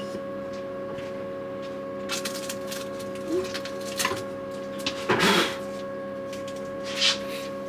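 CO2 laser cutter running: a steady electrical hum with a few short noisy bursts as the machine works, the loudest just after the middle.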